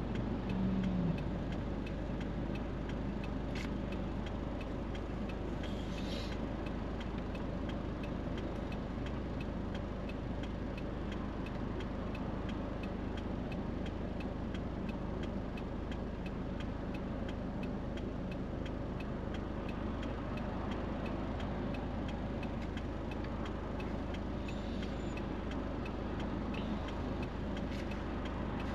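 Steady low hum inside a car stopped at a traffic light, with the turn-signal indicator ticking at an even pace.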